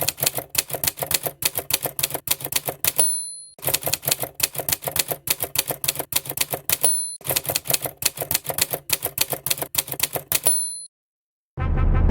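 Typewriter sound effect: three runs of rapid key clicks, each ending with a short bell ding. Music begins near the end.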